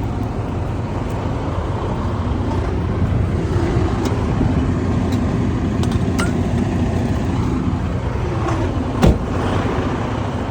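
Steady motor-vehicle rumble, with a few faint clicks and one sharp knock about nine seconds in.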